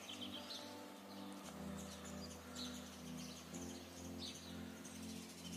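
Small songbirds chirping and twittering, many short quick calls, over soft background music of held low chords that change every couple of seconds.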